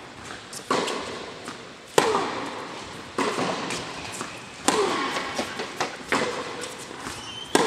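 Tennis rally on an indoor hard court: the ball is struck by rackets and bounces, about six sharp pops roughly one every second and a half, each ringing on in the large hall.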